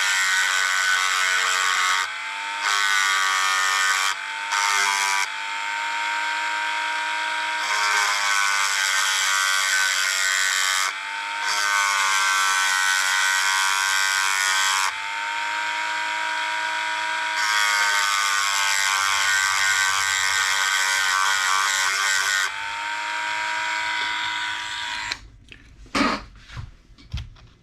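Small high-speed motor tool whining in repeated runs, its pitch sagging under load as it cuts a notch into the back of a lure lip. It stops about 25 seconds in, followed by a few light clicks.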